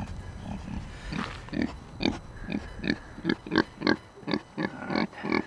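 A pig grunting over and over in short, quick grunts, about three or four a second, starting about a second in.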